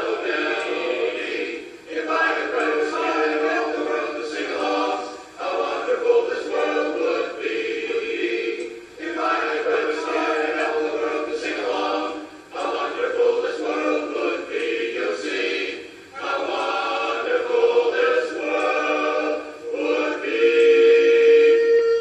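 Men's barbershop chorus singing a cappella in close four-part harmony, in phrases of a few seconds with short breaks between them, moving into a long held chord near the end.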